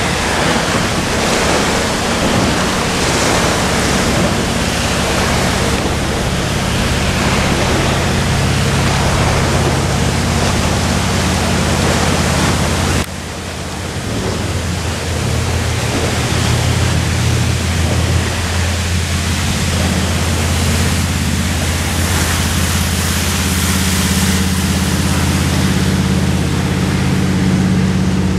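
Fire boat's engines and fire pump running with a steady low drone while its water cannon sprays, under a loud steady rushing hiss. The sound drops suddenly about thirteen seconds in, after which the low engine drone is stronger.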